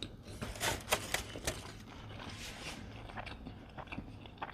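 Close-up eating sounds: chewing and mouth clicks as a taco is eaten, with a few short rustles and taps from handling the food, densest in the first second and a half.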